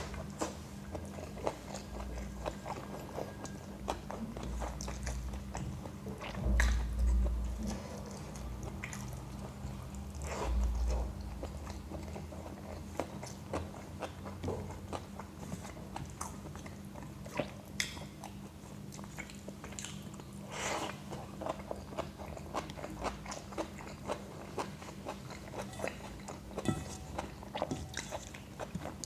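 A person eating close to the microphone: wet chewing, mouth clicks and smacks, with some crunching from a meal of tawa pulao, yogurt and raw salad. A couple of dull low bumps come about a quarter and a third of the way in, over a faint steady hum.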